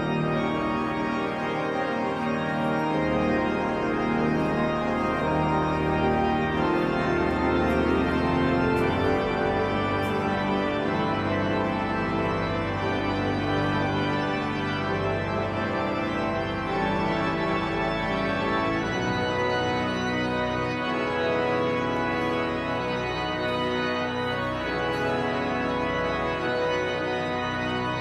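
Church pipe organ playing slow, sustained chords.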